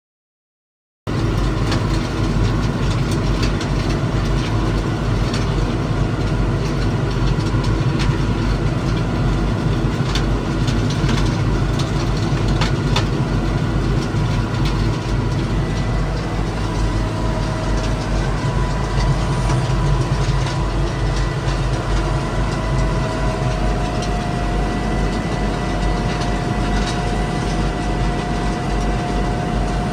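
Stone-crushing machine running under its engine: a heavy, steady drone with scattered sharp knocks and clatter of stones being broken up, and a faint whine that rises a little partway through. It starts about a second in.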